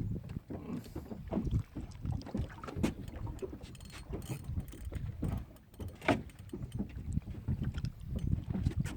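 Wind rumbling on the microphone, with scattered sharp clicks and knocks.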